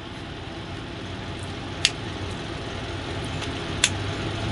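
Steady low mechanical hum with two light clicks about two seconds apart, as a hole saw is threaded onto its arbor.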